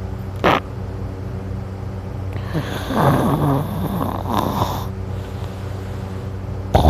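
A person snoring in their sleep: a short snort about half a second in, then a long rattling snore from about two and a half to five seconds, with the next snore starting near the end.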